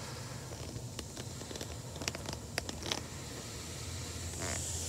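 Automatic car wash heard from inside the car's cabin: foam and water running over the windshield under a steady low hum, with scattered crackling ticks in the middle.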